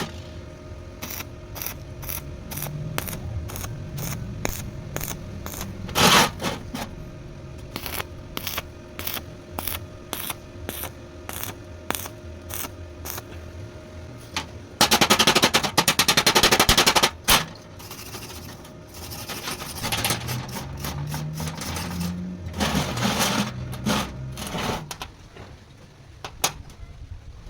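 Repeated sharp knocks, about two a second, with a dense rapid rattle lasting a couple of seconds about halfway through, over a steady low hum.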